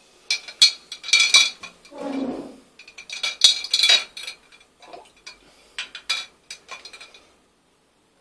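Laboratory glassware clinking and knocking: a string of sharp glass taps that ring briefly, with a duller, lower knock about two seconds in. It stops about seven seconds in.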